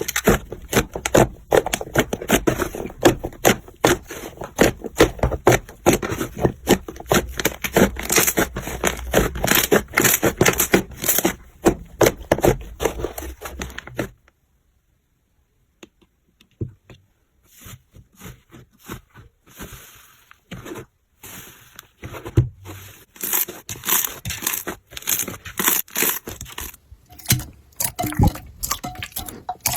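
Slime being squeezed and worked by hand, giving dense crackling and popping clicks. About fourteen seconds in it stops for a few seconds of silence, then starts again with sparser clicks.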